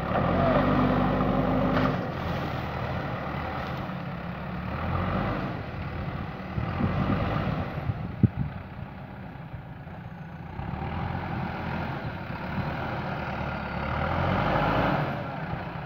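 JCB backhoe loader's diesel engine running, its note rising and falling several times as the machine works. There is a single sharp knock about eight seconds in.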